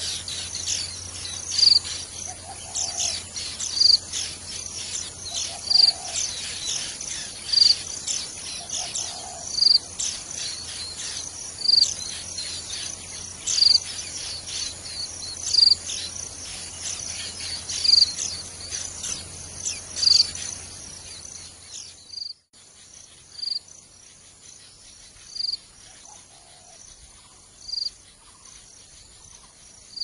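Insects chirping densely and high, with a short high note repeating about every two seconds over a low hum. Suddenly, about two-thirds of the way through, the hum stops and the chirping turns fainter, while the repeating note goes on.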